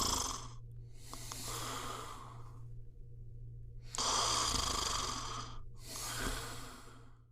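A person snoring: hissy breaths in and out in a slow rhythm, with a gap of about a second and a half before the strongest breath, about four seconds in.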